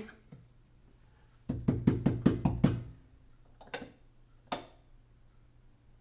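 A cup of ground coffee tapped against an espresso portafilter to knock the grounds into the basket: a quick run of about eight sharp knocks in just over a second, then two single knocks about a second apart.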